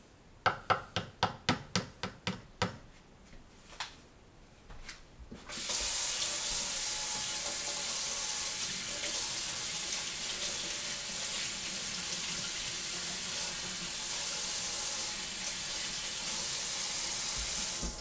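A metal spoon clinks quickly against a coffee cup about a dozen times as coffee is stirred. A few seconds later a kitchen tap runs steadily into the sink for about twelve seconds, then is turned off.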